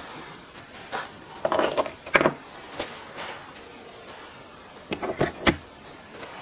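Light handling knocks and clicks, several short taps and clatters in two clusters, the sharpest about five and a half seconds in: tool parts and hand tools being handled on a workbench during disassembly.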